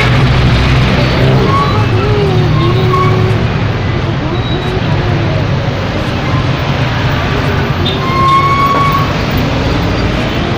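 Steady loud background noise with a constant low hum, with faint voices talking in the distance.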